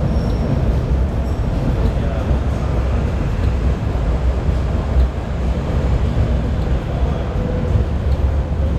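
Kawasaki-built Hong Kong Light Rail car running along the track, heard from inside the car: a steady low rumble of wheels on rail.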